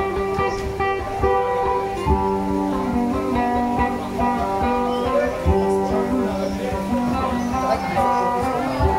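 Music played on a plucked string instrument: a melody of picked notes over a held low note, running steadily.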